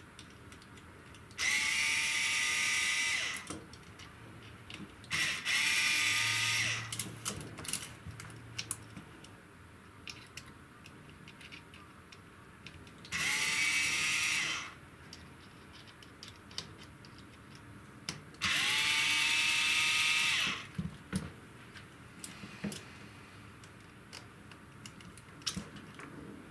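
Small electric power driver run in four bursts of about two seconds each, the motor spinning up quickly at the start of each. It is working on screws in an RC crawler chassis. Light clicks and knocks of small parts and tools are heard between the bursts.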